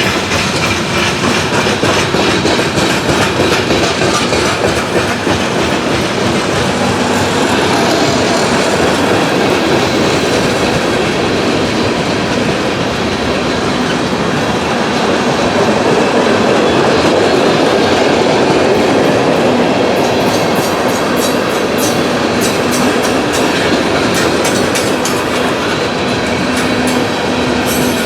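Freight cars of a CSX freight train rolling past at speed: a steady, loud rumble of wheels on rail, with a rapid clicking of wheels over the rail joints that grows sharper near the end.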